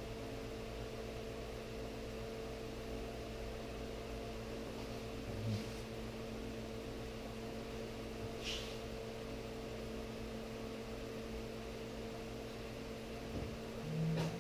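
A steady hum with a constant tone, like a small motor or fan running, with a few faint brief noises, one a short hiss about eight seconds in.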